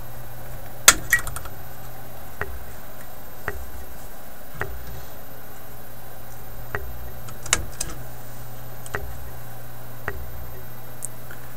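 Side cutters and pliers clicking and snipping against a radio chassis as an old paper-wax capacitor is cut free: a string of sharp metal clicks, the loudest a pair about a second in and another about halfway through, over a steady low hum.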